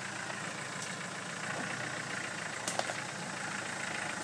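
Land Rover Defender engine running steadily at low revs as the 4x4 crawls down a rocky off-road track, with a couple of brief sharp clicks about two and a half seconds in.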